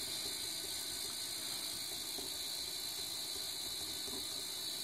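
Steady background hiss with a constant high-pitched whine, unchanging throughout: room tone and recording noise.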